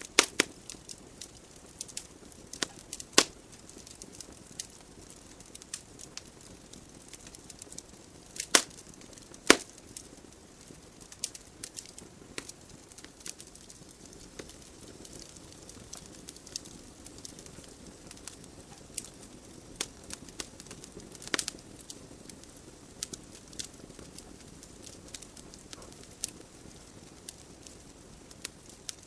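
Wood fire burning in a fireplace: a soft steady hiss of flames with irregular crackles and sharp pops from the logs, a few louder snaps standing out.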